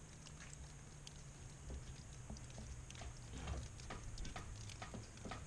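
Water dripping from a leak inside an opened ceiling cavity: faint, irregular ticks and taps over a low steady hum.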